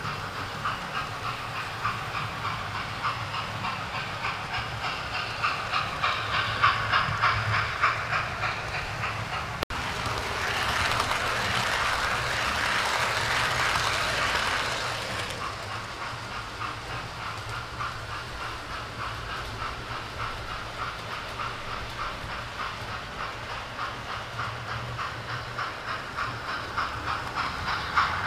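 Model railway trains running on the layout's track, their wheels clicking steadily over the rail joints. From about ten seconds in, a louder rushing run lasts some five seconds as a rake of Pullman coaches passes close by.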